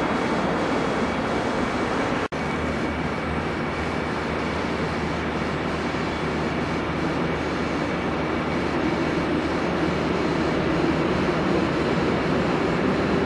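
Train running on the rails: a steady rushing rumble with a faint high whine, broken by a sudden dropout about two seconds in.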